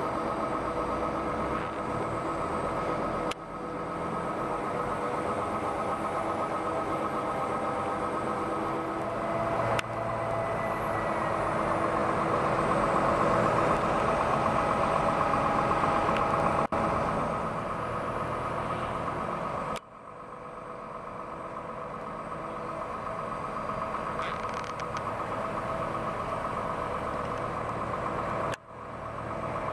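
The diesel engine of a Liebherr LTM 1100-5.2 mobile crane running steadily while it works a lift. It swells louder for a few seconds near the middle, and it breaks off briefly several times.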